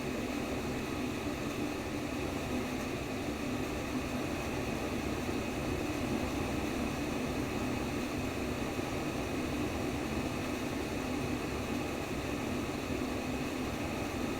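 Continuous white noise for baby sleep: an even, unchanging rushing hiss with a strong low band.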